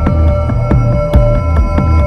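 Suspense background music: a low bass drone under held high tones, with repeated sharp percussive hits.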